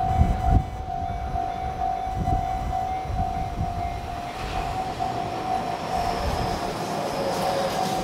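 Japanese railway level-crossing alarm ringing in a steady fast pulse while a Tobu 50090-series express train approaches, the noise of the oncoming train building over the last few seconds.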